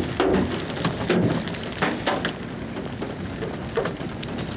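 Rain falling, a steady hiss with scattered louder drops tapping close by.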